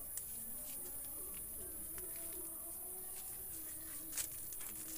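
Quiet garden background with faint low bird calls. A few soft clicks and rustles come from tomato plants being handled as a ripe tomato is picked, the clearest just after the start and about four seconds in.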